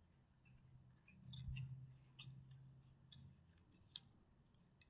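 Faint handling noise from hands moving plush toys: scattered light clicks and soft rustles over a low steady hum.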